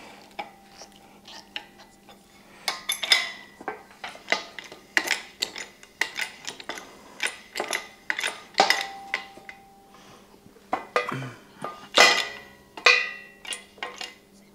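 Irregular metal clanks and clinks from a shop crane's hydraulic bottle jack and steel pump handle being worked as the ram is pumped up, some knocks with a short ring.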